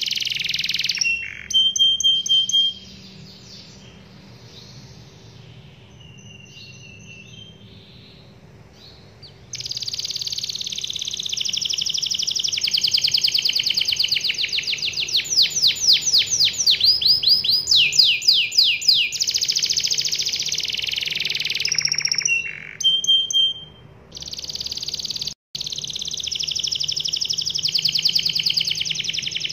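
Domestic canary singing its long rolling song: fast high trills and runs of rapid sweeping notes. The song drops away for several seconds after the first two, then runs on long and loud, with a brief break about three-quarters through.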